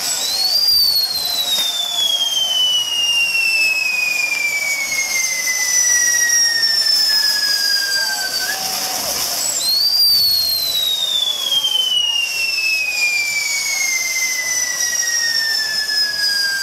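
Fireworks burning on a castillo fireworks tower: a steady hiss of sparking fireworks with two long whistling fireworks. Each whistle drops steadily in pitch for about eight seconds, and the second starts about halfway through.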